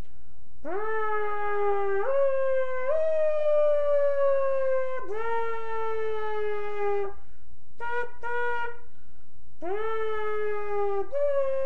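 A person's voice imitating an emergency-vehicle siren. Sharp rising whoops each settle into a long, slowly falling wail, with two short yelps a little past the middle.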